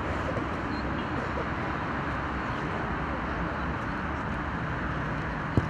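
Steady outdoor background noise, with a single sharp thump near the end.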